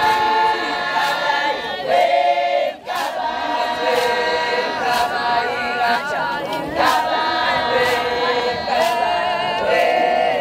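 Group of voices singing a Zulu ceremonial song together in held notes, with a sharp beat about once a second.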